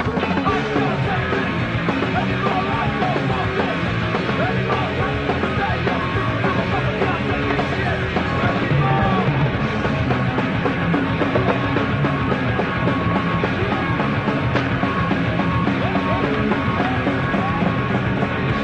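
Loud punk-rock music playing continuously.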